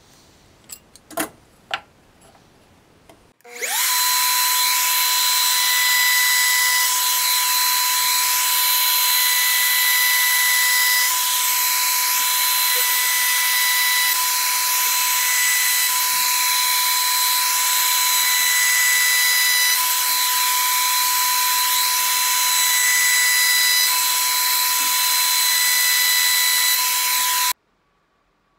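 A few light knocks, then a Makita trim router, clamped upright in a vise, spins up and runs with a steady high whine and hiss while a wooden block is fed against the bit to round its edges. It stops abruptly near the end.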